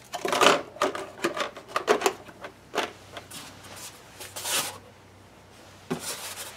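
Plastic handling noises: a series of sharp clicks and knocks as a thin plastic RC truck body shell is fitted down onto the chassis, then a rustling swish of foam packaging being moved, and one more click near the end.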